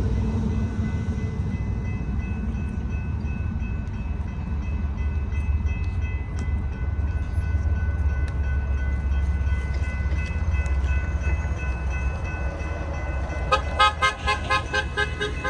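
A distant locomotive horn held as a steady chord for about ten seconds over a low rumble. Near the end, a quick pulsing tone, several pulses a second, as an escort SUV with flashing lights passes close by.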